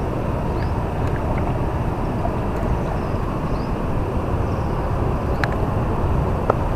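Steady low rumble of wind buffeting the microphone outdoors, with a few faint short high chirps and one sharp click about five and a half seconds in.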